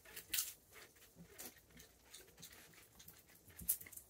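Raccoons handling and picking over peanuts in the shell: scattered faint clicks and rustles, with a sharper click about half a second in and another near the end.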